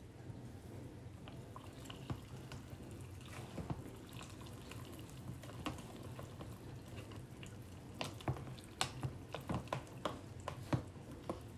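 A metal spoon stirring a thick, wet rehydrated Huel Hot & Savoury meal in a pot, clicking and scraping against the pot's sides. The clicks come faster and louder in the last few seconds.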